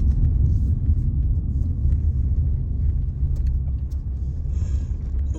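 A 2017 Hyundai Tucson being driven slowly, heard from inside the cabin: a steady low rumble of engine and road noise with a few faint ticks.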